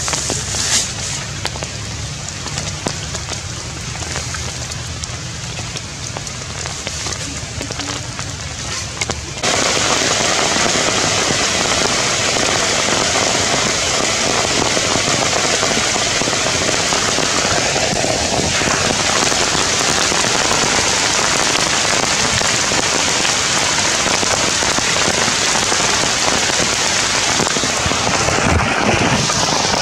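Steady rain falling on foliage, a dense even hiss that becomes much louder and fuller about nine seconds in.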